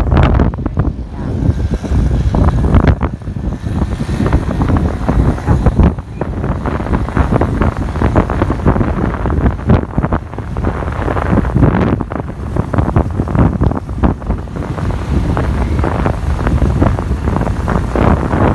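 Wind buffeting the microphone of a camera on a moving motorbike, a loud rough rushing that gusts up and down unevenly.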